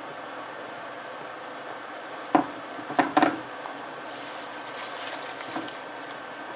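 Three sharp knocks, two of them close together about three seconds in, then soft rustling, over a steady hiss.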